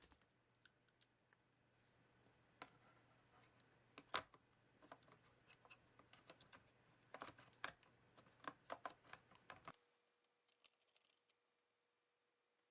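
Scattered light plastic clicks and taps from hands handling a laptop, with one sharper click about four seconds in and a quick run of them near the end, over a faint low hum that cuts off shortly before the end.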